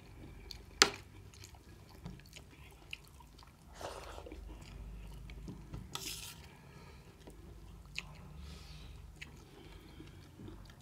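Mukbang eating sounds: a metal spoon clinking against a steel plate, one sharp clink about a second in louder than the rest, with a few lighter clinks, chewing and rice being mixed by hand.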